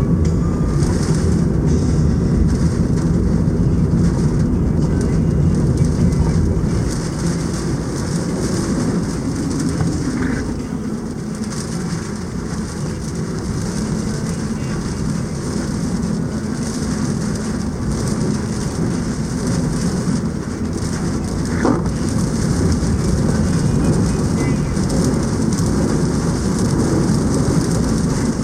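Typhoon wind and heavy rain, a loud steady rush with a hiss above it, easing slightly in the middle.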